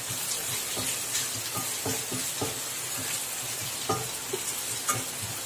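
Onions, tomatoes and green chillies with ginger-garlic paste sizzling in oil in a steel pan as a wooden spatula stirs them, with irregular scrapes and knocks of the spatula against the pan, the sharpest near the end.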